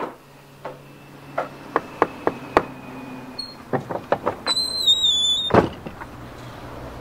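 A run of sharp clicks and knocks, then a door creaking open with a high, wavering hinge squeal lasting about a second, cut off by a loud thud.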